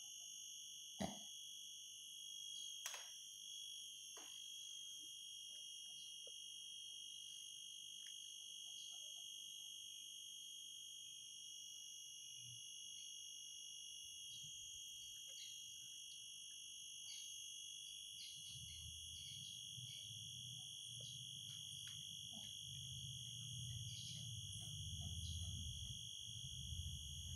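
A faint, steady high-pitched whine in several bands, with small clicks and rustles as fingers work through a small dog's fur. There are two sharper clicks in the first few seconds, and a low rumble of handling in the last third.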